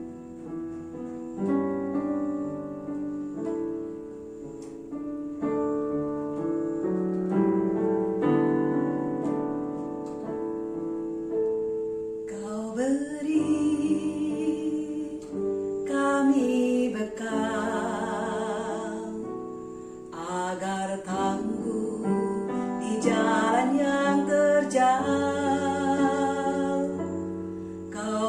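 Solo piano plays an introduction, then about twelve seconds in a woman begins singing over the piano accompaniment, her held notes carrying a wavering vibrato.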